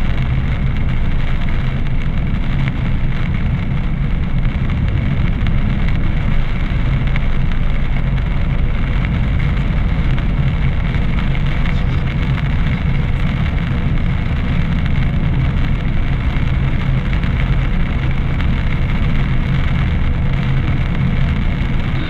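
A car driving on a wet road, heard from inside the cabin: a steady drone of engine and tyre noise.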